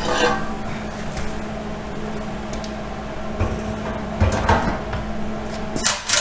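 Steel axle truss being handled and set onto a Ford 10.5 rear axle housing for a test fit: irregular metal clunks and scrapes, a heavier thump past the middle and sharp knocks near the end, over a steady low hum.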